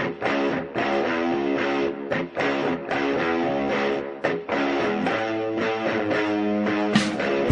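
Intro music: a guitar-led instrumental with strummed chords and a steady rhythm, drum hits coming in near the end.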